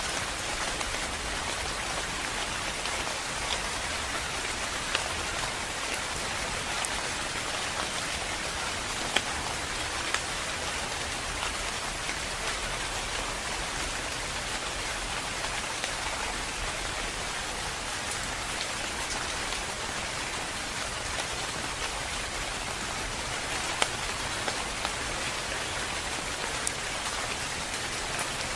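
Steady, calm rain falling, an even hiss with a few louder individual drops striking now and then.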